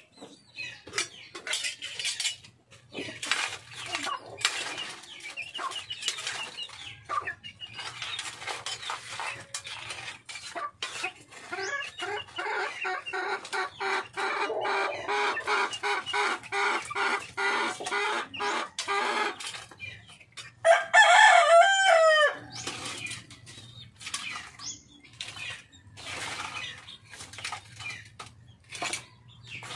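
Chickens clucking, with a rooster crowing loudly once about two-thirds of the way in, amid scattered clicks and knocks.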